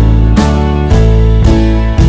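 Background music: a loud, strummed guitar track with a steady beat and chord changes about every half second.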